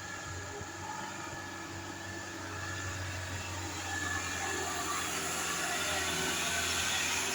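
A bus engine's low steady rumble with road noise, growing gradually louder.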